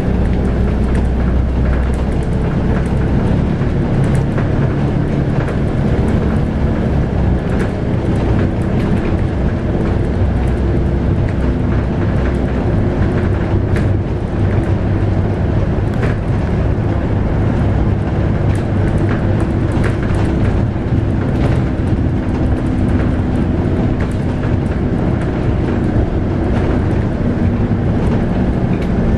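Scania K280UB bus with a 9.3-litre five-cylinder diesel, heard from inside the cabin while under way: a steady engine drone over road noise, with light body rattles. The engine note changes and rises about ten seconds in.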